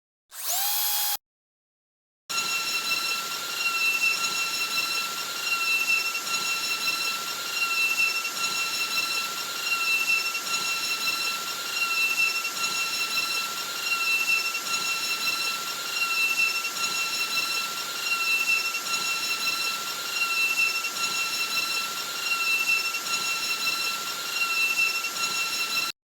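A small electric motor, like a power drill, whining steadily at a high pitch. Its speed and loudness dip slightly about every two seconds, and it starts and cuts off abruptly. Just before it, a brief sound rises in pitch.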